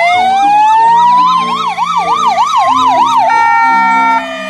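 Ambulance sirens sounding together: one wails in a slow rise and fall while another yelps rapidly up and down, about three sweeps a second. A little past three seconds they change to steady held tones, and they get quieter near the end.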